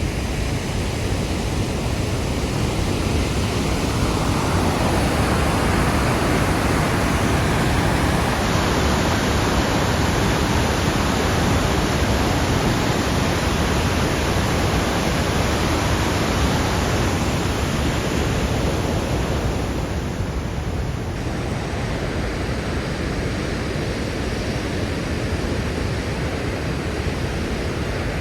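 Steady rushing roar of Kakabeka Falls, a large waterfall. It swells a few seconds in and eases a little after about twenty seconds.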